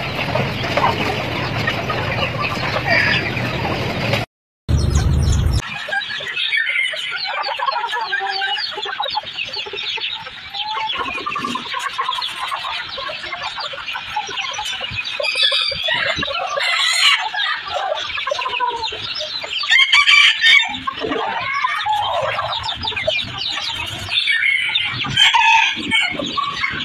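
Chickens clucking and calling over one another, with a rooster crowing; the loudest calls come in groups about two-thirds of the way through and near the end. Before that, a steady rumbling background noise cuts out abruptly about four seconds in.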